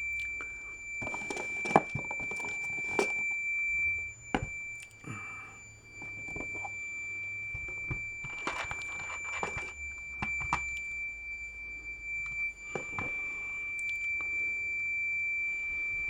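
Fluke 10 multimeter's continuity beeper sounding one continuous high tone, dipping briefly about four seconds in and again near the end. The beep means the resistance across the test leads, here in the tens of ohms, is still under the meter's roughly 100-ohm beep threshold. Clicks and rustles from handling the test setup come in two bursts, near the start and around the middle.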